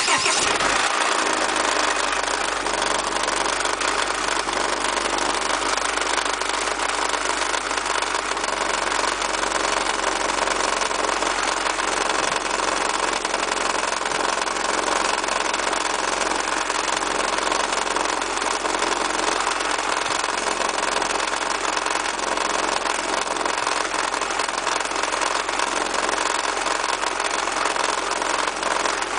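Honda H22A8 four-cylinder engine idling with a steady, rapid knocking from the front of the engine: the sign of a failed automatic drive-belt tensioner.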